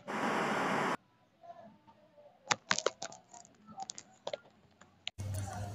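A one-second burst of TV-static hiss that cuts off sharply, then a few faint, scattered clicks and taps.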